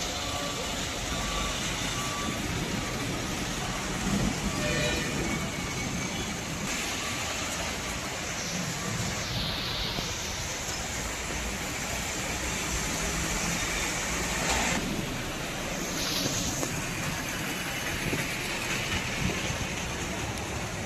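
Road traffic on a rain-soaked street: vehicles running over the wet road amid an even wash of rain noise, with a short repeating beep near the start.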